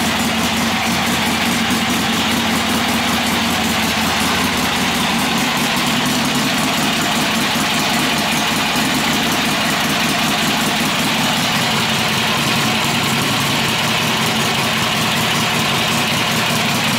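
1964 Harley-Davidson XLCH Sportster's ironhead V-twin idling steadily, just after being started.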